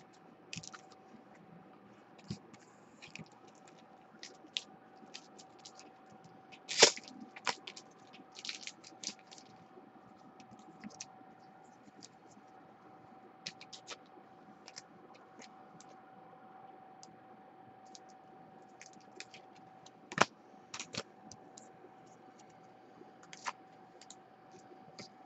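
Scattered light clicks and scraping taps of small objects handled on a desk, with two louder knocks, over a faint steady hum.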